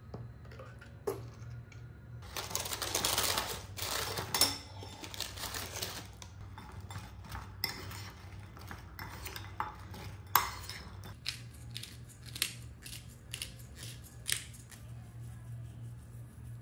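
Kitchen clatter: dishes and utensils knocked and set down in a string of separate clicks and clinks, with a few seconds of hissing noise about two seconds in and a low steady hum underneath.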